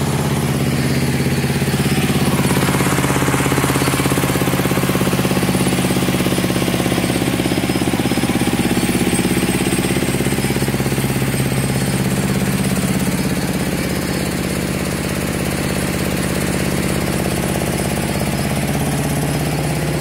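Diesel engine of a rice milling machine running steadily at a constant speed, with a fast, even beat.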